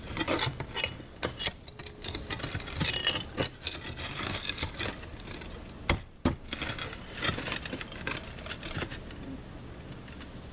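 A metal pry bar scraping and knocking against concrete roof tiles as it works them loose: irregular sharp clicks and knocks mixed with scraping.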